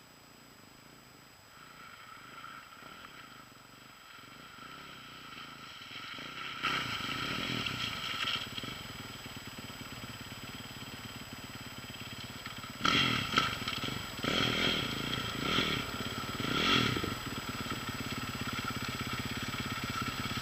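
Dirt bike engine approaching through mud, faint at first and growing louder, revved up several times in the second half as it rides through the wet ruts.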